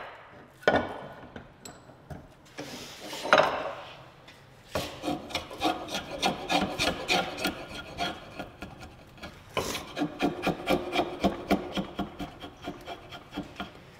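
Hand rasp scraping along a hickory axe handle: a couple of slow single strokes, then quick repeated strokes at about three a second, with a short break near the middle.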